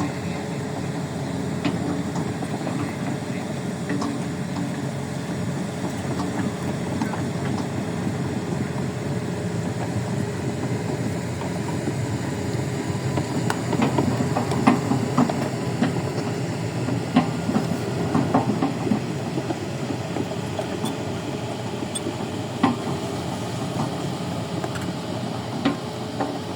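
Excavator running steadily while digging, with scattered knocks and clanks over the engine or motor hum.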